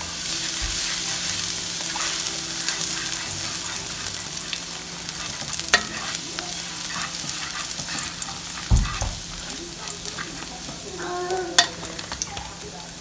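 Oil sizzling in a hot pan during a stir-fry, with a spatula scraping and clicking against the pan a few times. There is one dull low thump about two-thirds of the way through.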